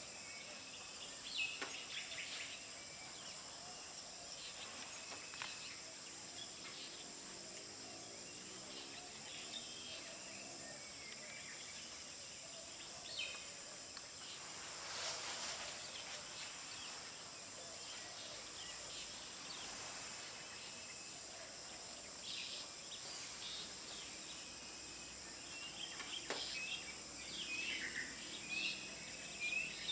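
Outdoor ambience of a steady high insect drone with scattered bird chirps. A brief rush of noise comes about halfway through, and a bird gives a quick run of repeated chirps near the end.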